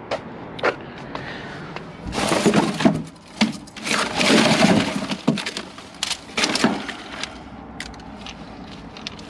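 Plastic bags and bubble wrap crinkling, with hard plastic junk and circuit boards clattering, as a gloved hand rummages through a dumpster. There are a few sharp knocks, and the loudest crinkling comes in two stretches between about two and five seconds in.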